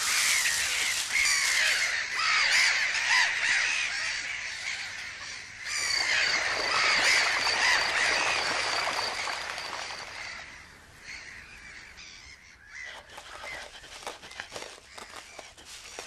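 A crowd of gulls crying at once, dense overlapping harsh calls from a breeding colony: alarm cries mobbing a badger that is raiding the nests. After about ten seconds the chorus thins to fainter scattered calls.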